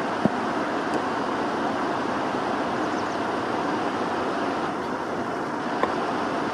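Steady outdoor background noise, an even rush with no distinct tone, broken by two brief sharp clicks: one a fraction of a second in, the other near the end.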